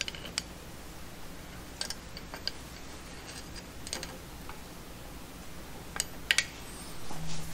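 A few faint, irregularly spaced clicks and taps of a hand tool turning the oil pump drive shaft, down through the distributor bore of a small-block Chevy engine.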